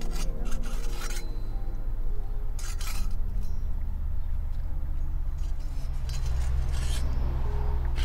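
A long knife slicing grilled pork steak on a flat stone, its blade scraping against the rock in a few short strokes, over background music.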